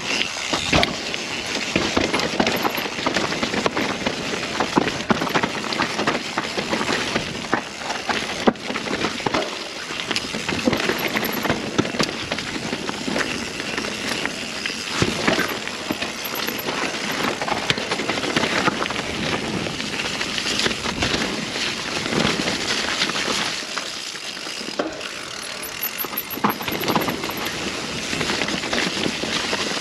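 Mountain bike riding down a rough, rocky trail: steady tyre noise on dirt and stone with frequent knocks and rattles from the bike over rocks and roots.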